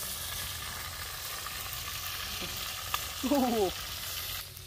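Chicken pieces sizzling and frying in a clay pot over a wood fire, a steady hiss, with a wooden spatula stirring and one light tap about three seconds in. Just after, a man's voice gives a short falling exclamation.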